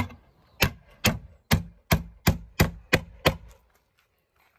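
Hammer driving a nail into a wooden plank: about nine sharp blows in a steady rhythm of two to three a second, stopping after three and a half seconds.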